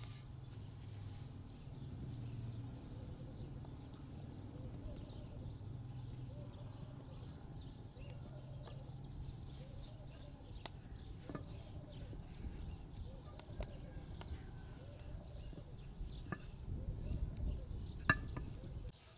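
Wooden rolling pin rolling out bread dough on a wooden board in repeated back-and-forth strokes, with knocks of the pin that grow busier near the end, while a wood fire crackles with sharp clicks. A low steady hum sits under the first half.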